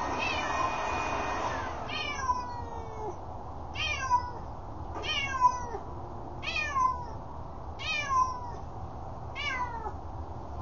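A domestic cat yowling: six loud, drawn-out meows, each falling in pitch, about one every second and a half, its agitated reaction to a neighbour's leaf blower. The leaf blower's steady running noise stops about two seconds in.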